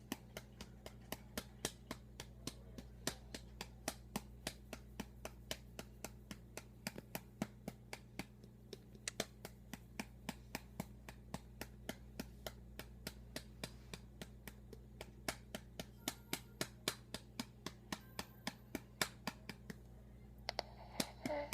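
A hand patting an electronic baby doll on the back to burp it: quick, regular pats, about three a second, kept up without a break.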